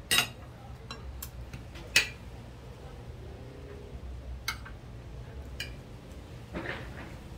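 Metal cutlery clinking against plates and a glass bowl as food is served: a few sharp, separate clinks, the loudest about two seconds in, over a low steady hum.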